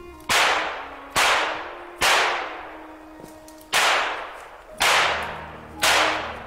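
Six handgun shots, each a sharp crack with a long echoing tail; they come about a second apart, with a longer gap after the third.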